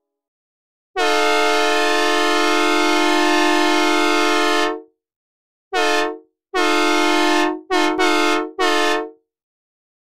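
Synthesized recreation of a Nathan M3H three-chime locomotive air horn, played dry without reverb. It gives one long blast of about four seconds, then five short blasts in quick succession, each cutting off sharply.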